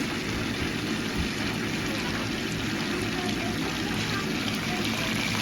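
Hot oil sizzling steadily as anchovies deep-fry, a continuous even hiss.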